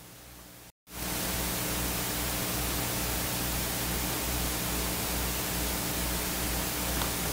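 Steady hiss with a low electrical hum: the recording's own background noise. A brief dropout about a second in, then the hiss comes back much louder and holds steady.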